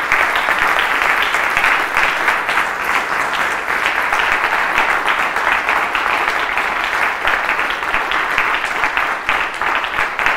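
An audience applauding: dense, steady clapping at the end of a lecture.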